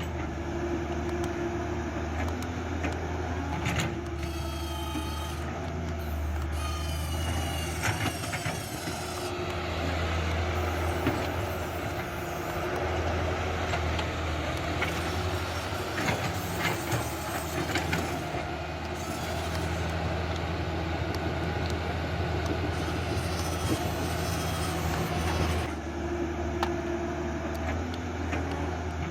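Huina RC excavator operating: a steady low motor hum with higher whines that shift and glide in pitch as the arm and tracks move.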